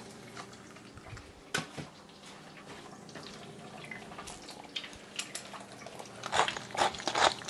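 Egg frying in hot bacon grease on an electric griddle plate: a steady sizzle with scattered small pops and crackles. Near the end comes a run of louder clicks, a pepper mill starting to grind.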